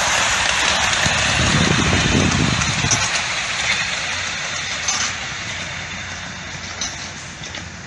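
Miniature steam locomotive hauling goods wagons past at close range and then running away, its steam and wheels-on-rail noise fading as it goes. A few sharp clicks come in the second half.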